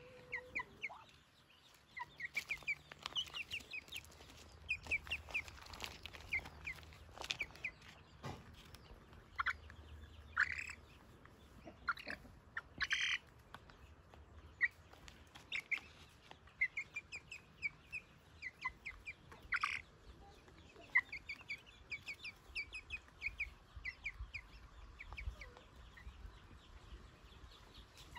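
Muscovy ducklings and a young chicken peeping: quick runs of short, high peeps, with a few louder single calls about ten, thirteen and twenty seconds in.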